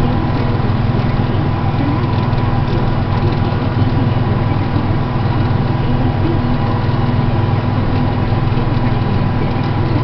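Deutz-Allis tractor's diesel engine running steadily under load as it pulls an IH 735 moldboard plow through the soil.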